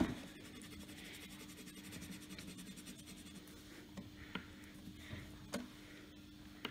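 Wax crayon scribbling rapidly back and forth on paper, filling in a square on a chart, for about the first three seconds, then a few light clicks.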